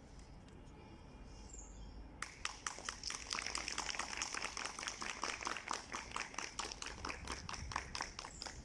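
Faint bird chirps, then about two seconds in a small group starts clapping: scattered claps, several a second, kept up until near the end.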